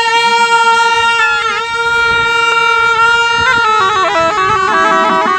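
Gyaling, the Tibetan double-reed ceremonial horn, playing a long held nasal note. From about three and a half seconds the pitch steps down through short ornamented turns.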